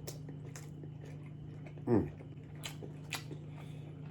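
Close-miked eating of a chili cheese dog: wet mouth clicks and chewing, with a short falling "mmm" of enjoyment about two seconds in, over a steady low hum.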